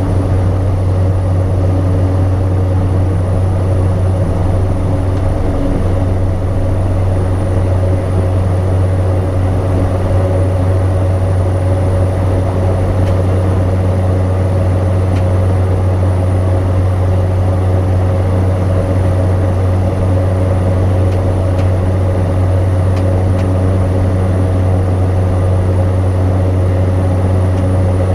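Cessna 208 Caravan's PT6A turboprop engine and propeller at takeoff power, a steady loud drone heard from inside the cockpit through the takeoff and climb-out.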